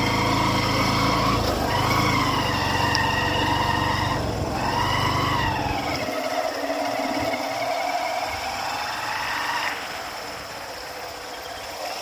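Motorcycle engine working at low speed over a rough, muddy dirt road, its pitch rising and falling every couple of seconds as the throttle is eased on and off. A heavy low rumble drops away about halfway through, leaving a steadier, lighter engine note.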